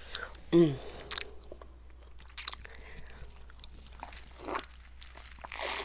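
Close-miked mouth and drinking sounds from a person drinking out of a plastic cup. A short falling hum comes about half a second in, then scattered wet mouth clicks, and a louder sip near the end.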